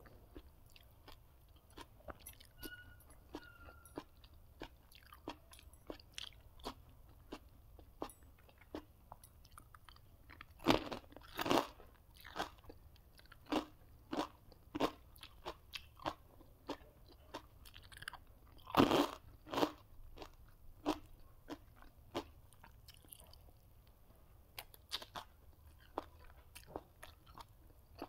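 Close-up chewing and crunching of food: a steady run of small crunches and mouth clicks, with louder crunchy bites about eleven seconds in and again about nineteen seconds in.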